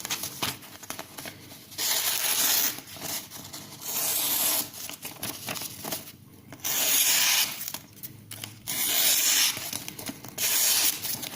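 A freshly sharpened knife blade slicing through a sheet of paper to test the edge: about five dry, rasping cuts, each under a second long and spaced roughly two seconds apart.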